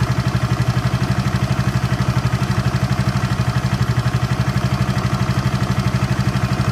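Water-cooled engine idling steadily with an even, rapid pulse of about nine beats a second.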